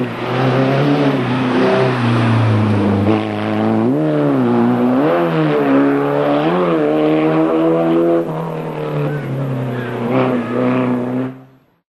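Racing car engine revving hard, its pitch swinging up and down again and again as it accelerates, brakes and changes gear. The sound cuts off suddenly near the end.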